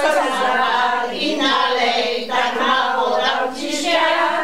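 A group of elderly women singing a song together, unaccompanied, in long held notes.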